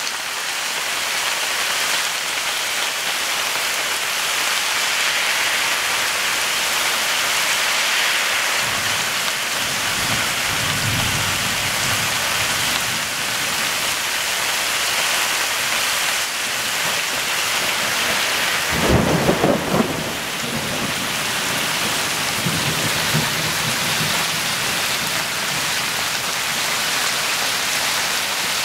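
Heavy rain falling steadily in a thunderstorm. Thunder rumbles low about nine seconds in, cracks louder about nineteen seconds in, and rumbles again softly a few seconds later.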